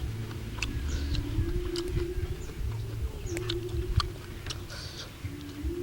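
Close-up chewing and wet mouth clicks from eating chicken curry noodles, with an on-and-off low steady hum behind them.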